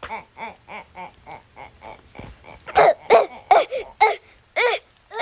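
A high-pitched, voice-changer-altered voice making rapid repeated wordless sounds, about four a second, then louder drawn-out cries about two a second from about halfway in.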